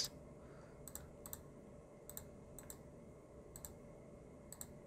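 Faint computer mouse clicks, about six of them at irregular intervals half a second to a second apart, each a quick press-and-release pair, as menu items are clicked in a screen-recorded software session.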